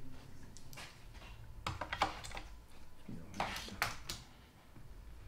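Metal printing type being handled: small irregular clicks and taps of lead type sorts knocking against one another and the wooden case. The clicks come in a few loose clusters, with a low steady hum under them.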